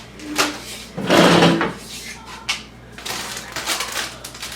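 Snacks and other pantry items being handled and moved on the shelves: a sharp knock, a louder rustle of packaging about a second in, then another knock and lighter rustling.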